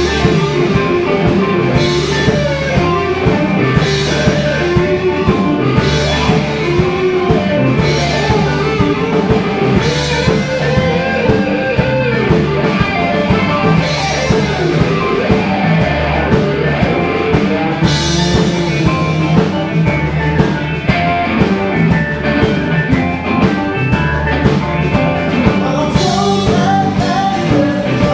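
Live rock-blues band playing: electric guitars and keyboard over a drum kit, with cymbal crashes about every two seconds and a singer at the microphone.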